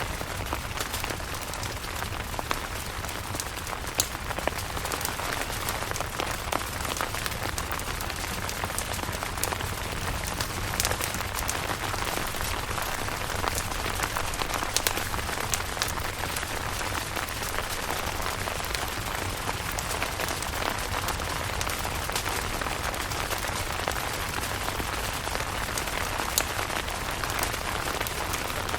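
Steady rain pattering on a camping tent, with many separate drop impacts over a constant hiss and a low, steady rumble underneath.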